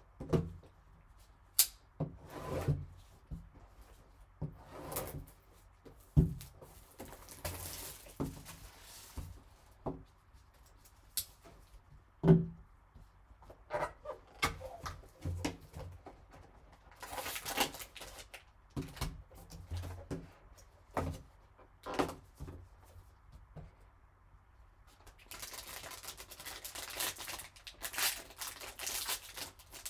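A trading card box being opened by gloved hands: scattered taps and thunks of cardboard being handled, with short stretches of crinkling, tearing plastic wrap and a longer stretch of it near the end.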